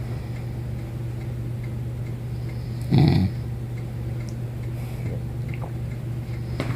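A woman snoring in her sleep: two short, loud snores, one about three seconds in and another near the end.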